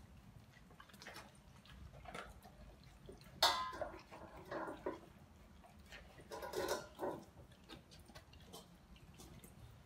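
Dogs licking and nosing at stainless steel food bowls, the metal bowls clinking at scattered moments, with a sharp knock about three and a half seconds in.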